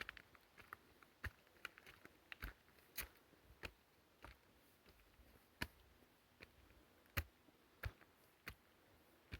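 Faint footsteps climbing stairs: sharp, irregular taps and knocks, roughly one to two a second.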